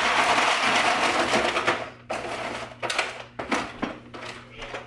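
Plastic bag of frozen meatballs crinkling loudly as it is handled for the first couple of seconds. Then comes a run of irregular clicks and rattles as the frozen meatballs are tipped out into a foil tray.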